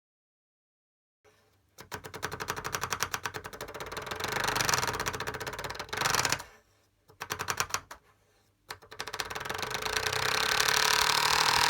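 A homemade sound effect made with everyday objects: a fast, rattling run of sharp clicks like rapid gunfire. It comes in three runs: a long one, a short burst a few seconds later, and a last run that grows louder.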